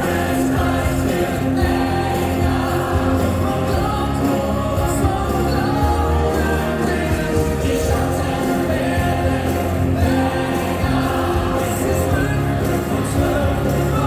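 Music with singing: long held notes over a steady low bass.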